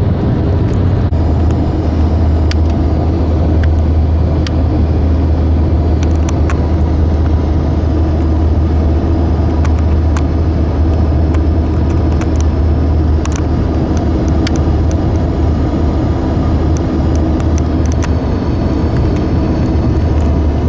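Steady low rumble of a running vehicle, with scattered faint clicks and ticks over it.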